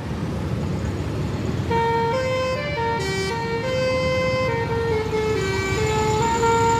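Tourist bus's basuri telolet horn playing a tune of short held notes that step up and down, starting a little under two seconds in, over a low traffic rumble.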